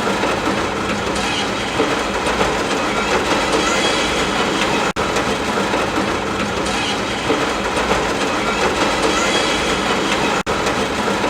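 Steady rain noise, an even dense hiss played as a short loop that cuts out for an instant about every five and a half seconds.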